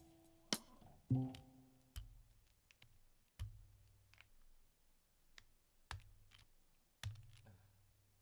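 Plastic keycaps being pulled off a mechanical keyboard's switches with a keycap puller: about six sharp clicks, a second or more apart, some with a light knock, as the caps are cleared to get at the stabilizers.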